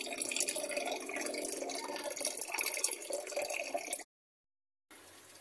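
Tap water running in a thin stream into a basin of water holding broccoli florets being washed, splashing and trickling steadily. It stops abruptly about four seconds in, and a faint steady hum follows.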